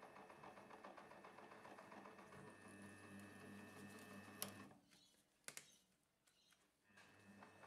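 Optimum mill-drill spindle motor running at low speed while power-tapping with a spiral tap, with a low hum and fast, even ticking. About four and a half seconds in it switches off with a click and stops. After a second click, it starts up again near the end, reversed to back the tap out of the hole.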